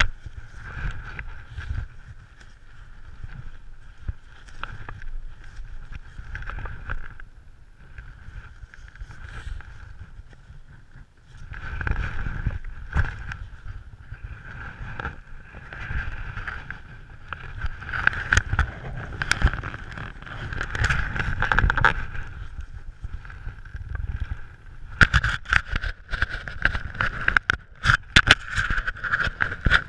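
Air rushing over a wingsuit in flight and across the camera's microphone, with a steady high whistle through it. The rush swells about eleven seconds in and again near the end, with sharp crackles from the suit's fabric fluttering.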